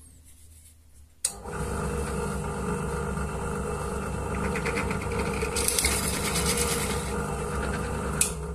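Bench drill press running, its twist drill bit cutting into orange PVC pipe. The machine comes in suddenly about a second in, then runs steadily as a motor hum with the scraping of the bit through the plastic.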